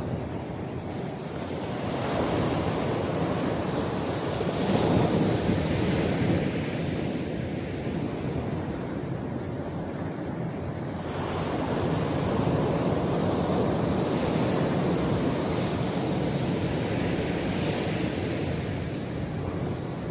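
Sea surf breaking and washing up the beach, swelling louder twice as waves come in, with wind blowing on the microphone.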